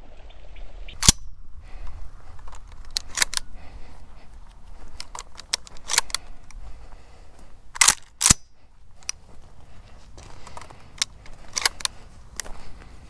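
A shotgun shot about a second in, at upland birds. After it come many lighter crunches, clicks and rustles as the hunter moves through dry sagebrush with the gun, and two sharper knocks close together about eight seconds in.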